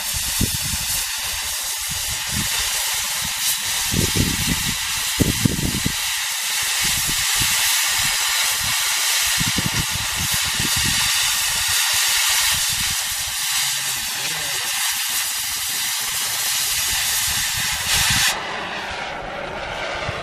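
Oxy-fuel cutting torch hissing steadily as it burns through a steel bar. About 18 seconds in the hiss drops sharply to a quieter flame sound as the cut ends and the torch is left burning.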